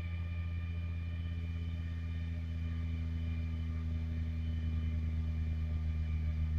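Low bass sine test tone played through a rebuilt Soundstream car amplifier during a sine-sweep test, a steady hum that grows slowly louder.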